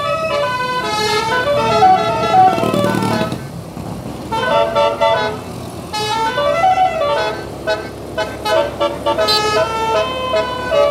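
Telolet bus horn, a set of multi-trumpet air horns, playing a tune of held notes that step up and down in pitch.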